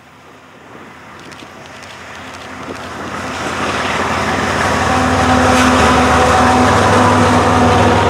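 A Canadian Pacific GE ES44AC diesel locomotive, with its V12 GEVO engine, approaches and passes, growing steadily louder until it levels off about halfway through. Steady humming tones join the rumble as it draws level. Grain hopper cars roll by on the rails near the end.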